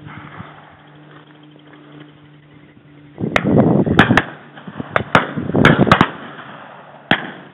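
A ragged volley of shotgun shots at a driven pheasant shoot, about eight sharp cracks, starting about three seconds in and spread over roughly four seconds. A rough, rushing noise close to the microphone lies under the first shots.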